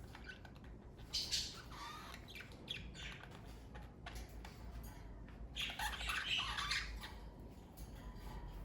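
Pet budgerigars (Australian parakeets) chattering with short squawks and chirps in clusters, a busy burst about a second in and a longer, louder stretch of chatter around six seconds.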